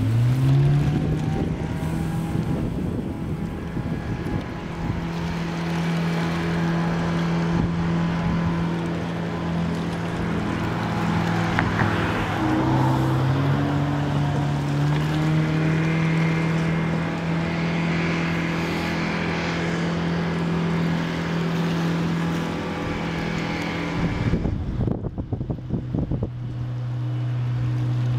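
Boom boat engine working hard while the boat pushes among floating logs: it revs up at the start and holds a steady pitch, dips and climbs again about twelve to fifteen seconds in, and settles at a lower pitch near the end as it throttles back. A gust of wind buffets the microphone shortly before the end.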